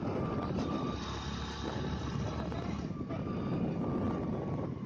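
Motorcycle under way: steady engine and road noise, with the level dipping briefly about three seconds in.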